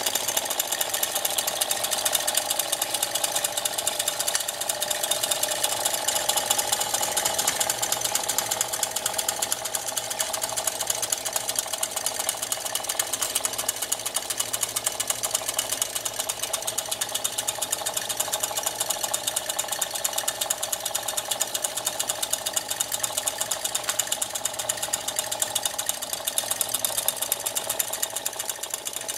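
Wilson Bros. toy steam engine, a small vertical-boiler model, running steadily at speed with a rapid, unbroken patter of beats. It drives belt-driven tin workshop models that clatter along with it.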